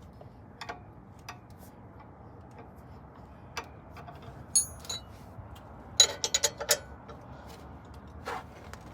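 Scattered metallic clicks and clinks of hand tools and brake hardware being worked on a truck's front brake assembly, with a quick run of clicks about six seconds in.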